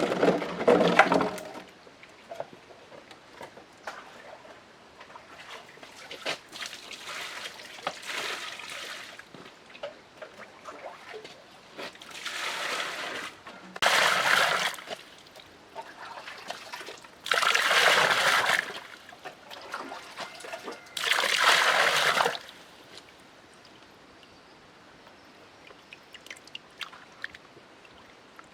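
Water splashing and sloshing in several loud bursts of a second or so each, with quieter trickling between them.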